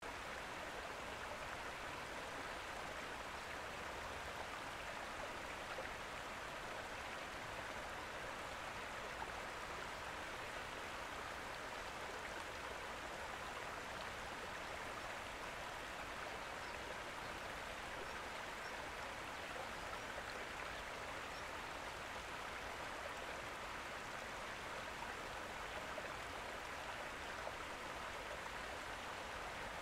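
Steady running water of a small stream, an even rushing with no separate drops or splashes.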